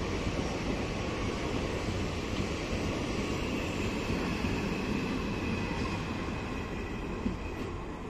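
Indian Railways passenger coaches rolling slowly past on the track: a steady rumble of wheels on rail, easing a little near the end as the train draws away.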